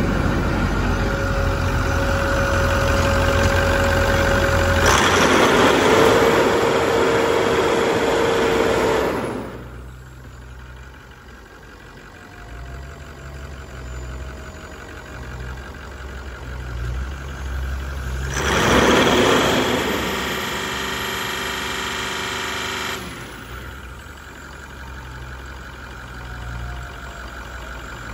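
2009 International MaxxForce 7 6.4-litre V8 diesel engine running at idle with a low pulse. Twice it becomes much louder and harsher, with a steady whine: once for the first nine seconds or so, then again for about four seconds later on.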